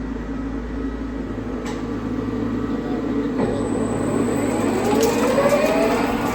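Fryer ET-50 CNC flat bed lathe's headstock shifting into its third gear range and the spindle spinning up toward 200 RPM: a steady machine hum, then a rising whine from about three and a half seconds in, with a few light clicks near the end.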